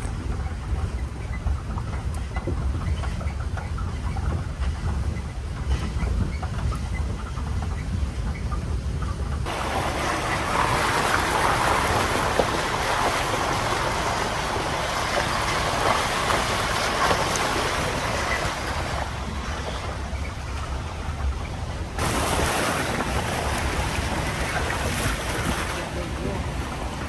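Open safari jeep driving: a low engine and tyre rumble with wind rushing over the microphone. The rushing noise jumps louder about ten seconds in and falls back about two-thirds of the way through.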